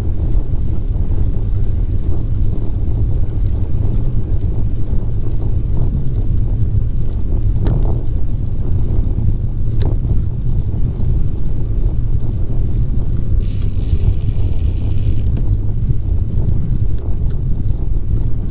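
Wind rumbling on the microphone of a camera on a moving bicycle: a loud, steady low rumble. About thirteen seconds in, a brief higher-pitched buzz joins it for about two seconds.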